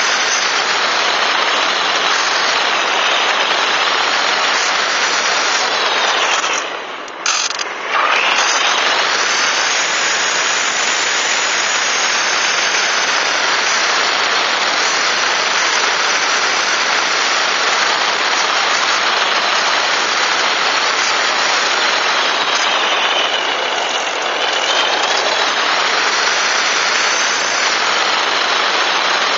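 RC model plane's motor and propeller running in flight, heard through the plane's onboard camera microphone as a loud, steady noise mixed with rushing air. The motor is throttled back briefly about seven seconds in, and its pitch dips and recovers again at about twenty-four seconds.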